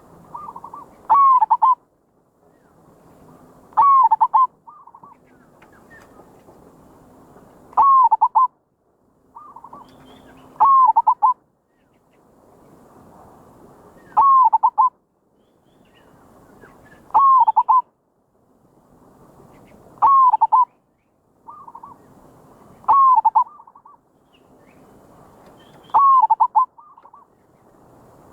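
Zebra dove (merbok) cooing: a short rippling phrase of quick coos, repeated about every three seconds, nine times. This is the call wanted in a decoy bird used to lure wild zebra doves.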